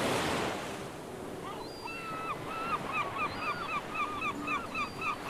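Ocean surf washing, and from about a second and a half in a bird calling over it in a quick series of short, hooked notes, about three a second.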